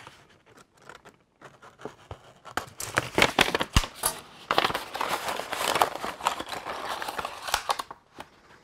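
Brown paper parts bag crinkling and rustling as it is opened and plastic parts are pulled out, a dense run of crackly rustles starting a couple of seconds in.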